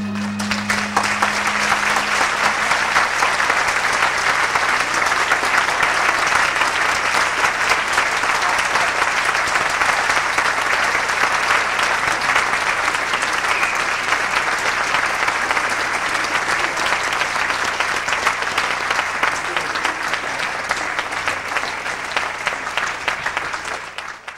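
Audience applauding steadily at the end of a dance performance, dying away at the very end.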